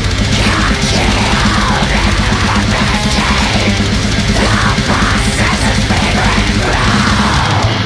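Goregrind played on heavily distorted electric guitar and bass over fast drums, loud and dense.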